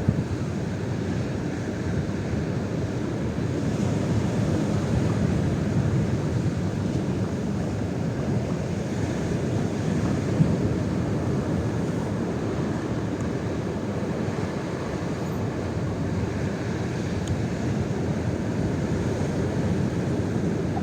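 Strong, gusty wind blowing across the microphone, heard as a steady low noise that swells and eases, with one brief knock about halfway through.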